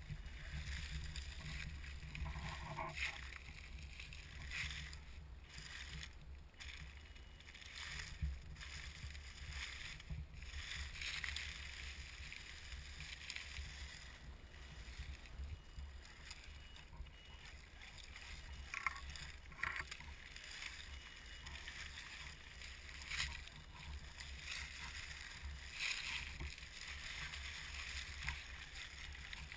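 Axial SCX10 scale RC crawler driving over dry leaf litter, its electric drivetrain running and its tyres crackling through the leaves, over a steady low rumble on the camera's microphone.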